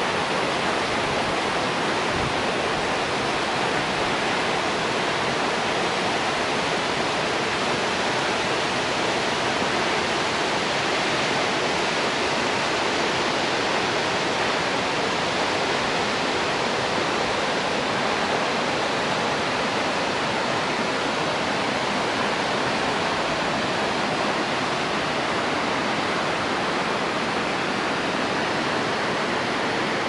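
Nachi Falls, a tall single-drop waterfall, pouring into its rocky stream bed: a steady, even rush of falling and tumbling water with no let-up.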